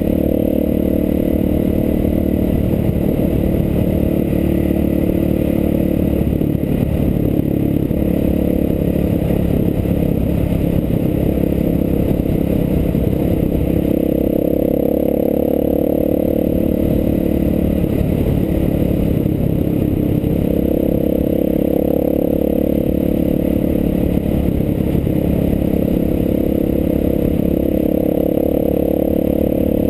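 Enduro motorcycle engine running at speed, its note rising for a stretch about halfway through and again later, with a steady clatter and rumble from the cobblestone surface.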